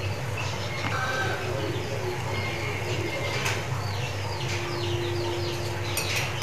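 Birds chirping in quick, short calls, over a steady low hum.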